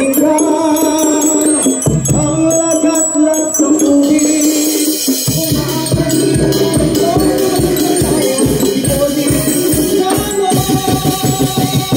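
Percussion ensemble of hanging bossed gongs and drums playing dance music: ringing gong tones over a quick, steady drum beat that comes in about five seconds in, with rattling shakers.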